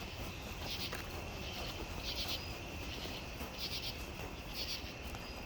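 Night insects, crickets, chirping: a steady high trill with louder pulsed chirps about once a second.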